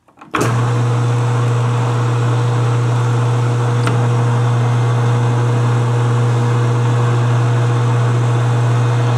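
Metal lathe switched on about half a second in and running steadily, its motor giving a strong, even hum, with one faint click about four seconds in.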